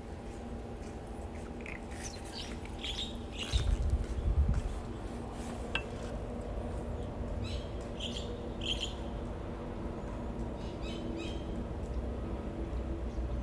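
Squeaking from a Honda Civic's suspension: short creaky chirps that come in clusters, with a heavy low thump about four seconds in, over a steady low hum. The noise is put down to a shock absorber that no longer rebounds, its damping gone.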